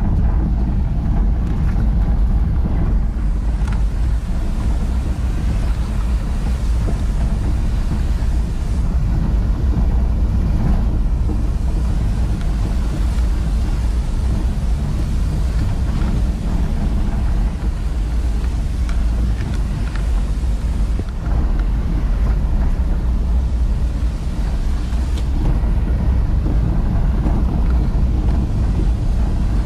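Heard from inside the cabin, a vehicle drives over a rough gravel and rock road: a steady low rumble of engine and tyres, with a few faint knocks from the bumpy surface.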